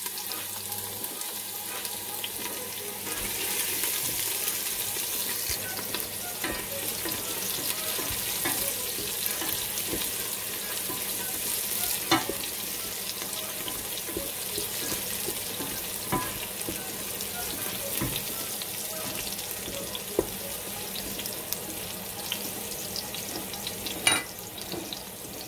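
Chopped garlic and ginger sizzling in hot oil in a stainless steel pot, a steady hiss that gets louder a few seconds in. A wooden spatula stirs them, with a few sharp knocks scattered through.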